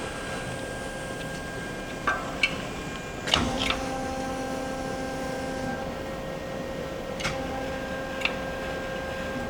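Ikegai TU-30LL CNC turning centre running under power: a steady mechanical hum with fixed tones, broken by a few sharp clicks. Two stretches of an added motor whine begin with clicks, about three seconds in and again about seven seconds in.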